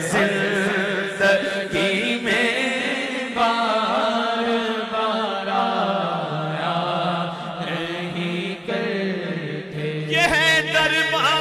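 A man singing a naat (Urdu devotional song) in long, drawn-out melismatic phrases, the pitch sliding and wavering, over a steady low drone.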